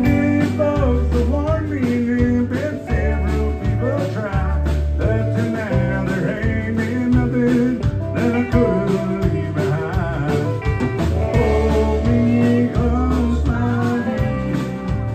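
Live country band playing, with fiddle, acoustic guitar, electric guitar and drums.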